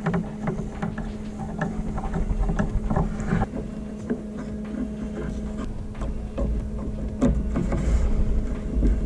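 Irregular knocks, taps and scrapes of small wood pieces being handled and fitted into benchwork framing, over a steady low hum.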